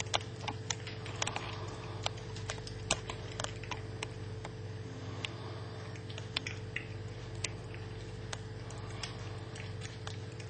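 A cat chewing on a small rodent it caught: irregular sharp crunches and clicks, several a second, over a steady low hum.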